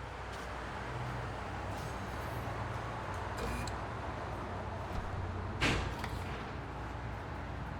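Auto repair shop ambience: a steady background hum and murmur with scattered small clicks, a brief high-pitched squeak about three and a half seconds in, and one sharp knock a little past two thirds of the way through.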